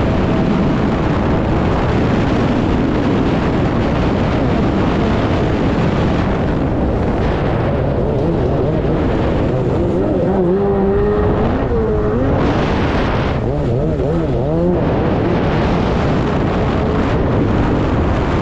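An engine running with a steady rushing noise, its pitch wavering up and down through the middle.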